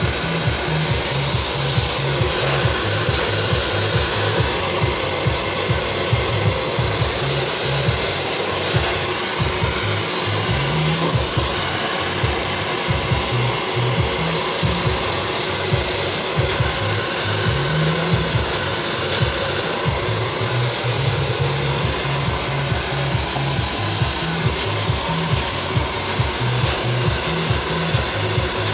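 Handheld hair dryer blowing steadily while hair is brushed through, with background music carrying a repeating bass line underneath.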